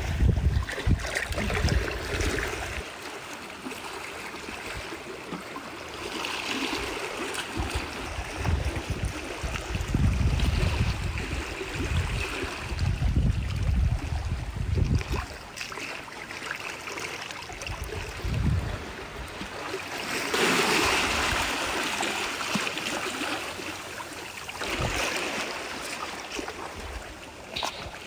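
Seawater washing and lapping at the shoreline, swelling louder a few times, with low rumbles of wind on the microphone now and then.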